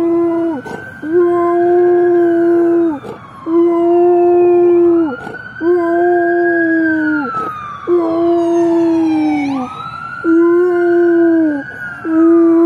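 A large dog howling along with a siren: about six long, steady howls, each one to two seconds long and dipping at the end, with short breaks between. Behind them a siren wails, slowly rising and falling.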